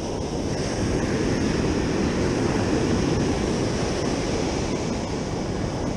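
Ocean surf washing up the sand in a steady rush of noise, with wind on the microphone; it swells a little at the start and then holds level.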